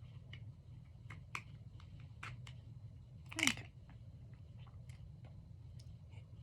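Slime handled by hand: scattered small sticky clicks and crackles over a low steady hum, with one louder squelching pop about three and a half seconds in.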